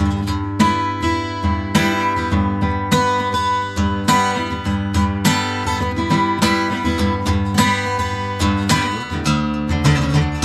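Background music: strummed and picked acoustic guitar with a steady rhythm.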